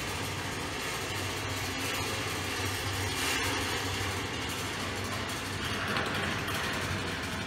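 Balls rolling along the wire rails of a large marble run, a steady rumble that swells a little around three and six seconds in.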